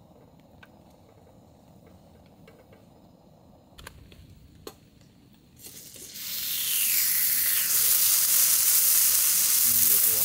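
Two small clicks, then food starts sizzling in a hot pan about halfway through, quickly building to a loud, steady sizzle.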